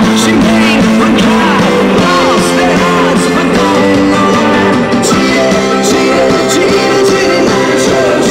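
Rock song with electric guitar and vocals playing loudly through a motorcycle's custom aftermarket stereo speakers.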